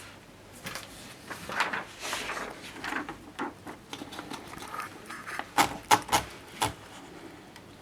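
A 1939 Erika M typewriter being handled: rubbing and sliding sounds, then a quick run of sharp mechanical clicks about five to seven seconds in.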